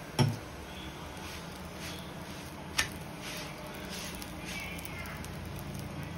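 Quiet kitchen sounds of a chapati cooking on an iron tawa: a knock just after the start and a sharp click about three seconds in, over a low steady hum and faint hiss.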